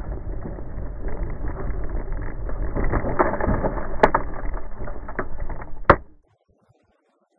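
Muffled in-car road noise from a dashcam on a moving car, thickening as a spray of snow and debris strikes the car, with a sharp hit about four seconds in and a loud thump near six seconds; the sound then cuts off suddenly.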